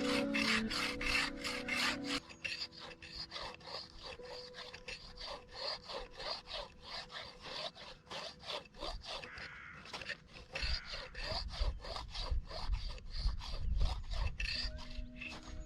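Hand saw cutting through wood in quick, even back-and-forth strokes, about three a second. A few held notes of music play over the first two seconds and again near the end.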